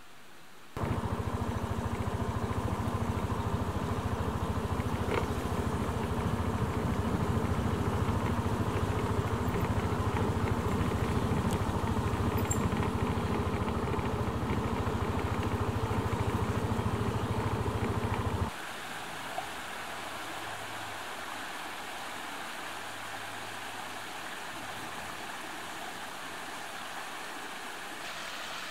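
A vehicle engine running steadily while travelling along a road, starting about a second in and cutting off abruptly about eighteen seconds in. After the cut only a much quieter steady hiss remains.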